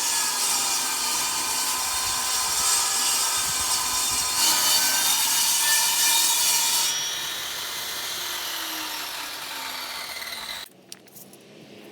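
Power saw cutting a Trex composite decking board, a long continuous cut with the motor whining under load. It eases and turns quieter about seven seconds in, then cuts off abruptly near the end.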